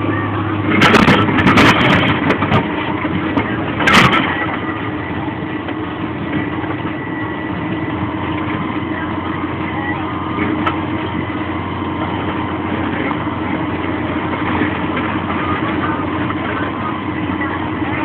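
Tractor engine running steadily under load while pulling a multi-furrow reversible plough. A cluster of sharp knocks comes about a second in and another about four seconds in: the plough striking stones in the soil.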